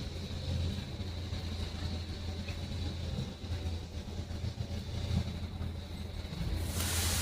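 Steady low outdoor rumble with a faint, steady high-pitched whine over it, and a short rushing hiss about seven seconds in.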